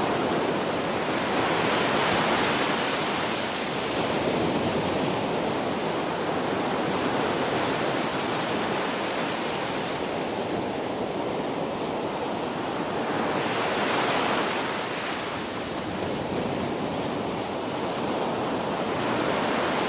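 Sea waves breaking and washing up a beach in continuous surf, swelling louder every few seconds, most strongly about two seconds in and again about fourteen seconds in.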